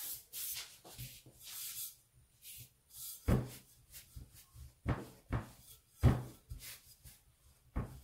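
A rolling pin rolling dough back and forth on a floured table: soft swishing strokes at first, then from about three seconds in a run of knocks, roughly one every half to one second, as the pin comes down and turns at each stroke.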